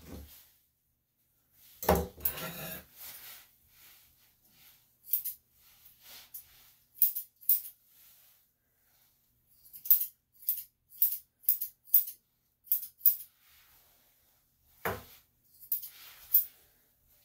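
Grooming scissors snipping hair on a dog's ear: a string of short, sharp snips, coming quickly one after another from about ten to thirteen seconds in. There is a short burst of louder noise about two seconds in and a single knock near fifteen seconds.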